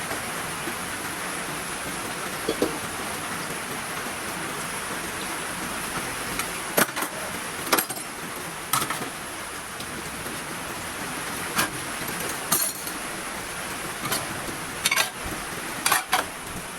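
Heavy rain falling steadily as an even hiss. Scattered sharp clicks and taps come through it, several close together in the second half.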